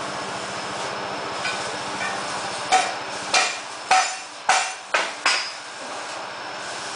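Six hammer blows on metal in quick succession, about two a second, each with a short ring, over a steady low mechanical hum.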